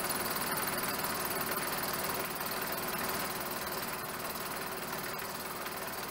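Milling machine spindle running with a 3/4-inch two-flute end mill plunge-cutting into an aluminum block on the quill feed: a steady dense machining noise that drops slightly after about two seconds.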